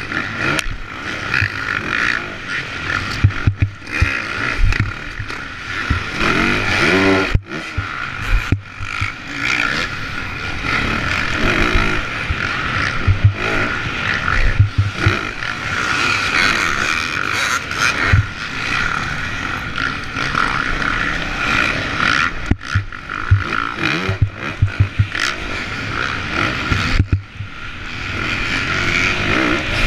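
Dirt bike engine racing on a supercross track, heard from the rider's helmet camera: it revs up and falls off again and again as the throttle is worked through turns and jumps, with a few sudden brief drops where the throttle is shut. Wind rush and the bike clattering over the dirt run under it.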